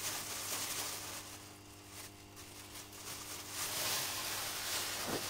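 Rustling and light scraping as hands work at the top of a smokehouse smoke generator, louder near the end, over a steady low hum.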